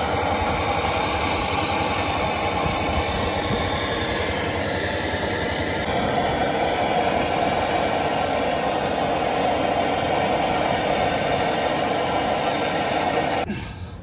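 A power cutting tool running continuously as it grinds through a metal bolt, a steady loud grinding that cuts off suddenly near the end when the piece snaps free.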